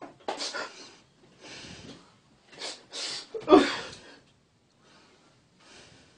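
A man sobbing: breathy gasps and sniffs in uneven bursts, the loudest with a voiced cry about three and a half seconds in.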